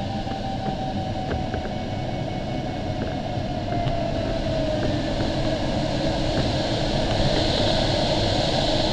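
Steady rush of airflow in the cockpit of an LS-4a sailplane, growing louder about halfway through, with a glider variometer's continuous audio tone sliding slowly lower in pitch and then rising again near the end.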